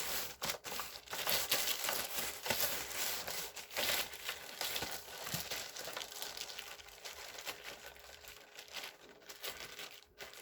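Plastic parcel packaging being handled and crinkled: a dense run of crackling and rustling, busiest in the first half and thinning toward the end.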